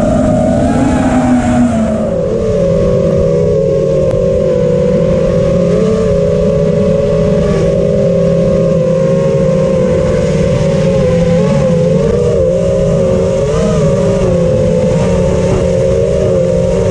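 Brushless motors and propellers of an Armattan Rooster FPV quadcopter, heard from its onboard camera: a steady, loud whine whose pitch drops slightly about two seconds in and then holds with small wobbles.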